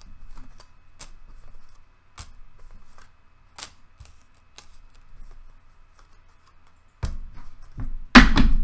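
Tarot cards being handled on a table: scattered soft clicks and rustles of cards being shuffled and laid out, then louder handling with a knock near the end.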